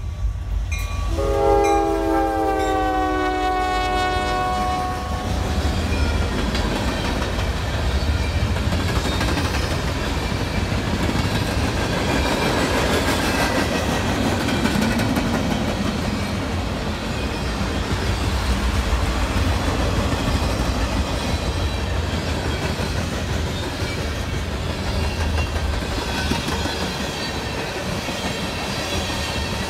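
Norfolk Southern freight train passing close by: the lead diesel locomotive's horn sounds one chord for about four seconds just after the start, falling slightly in pitch. Then the locomotives and a long string of freight cars roll past with steady wheel clatter and rumble.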